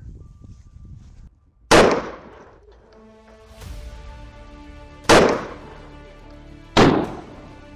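Three shots from a Desert Eagle .50 AE pistol, each a sharp crack with a short ringing tail; the second and third come about a second and a half apart. Background music comes in about three seconds in.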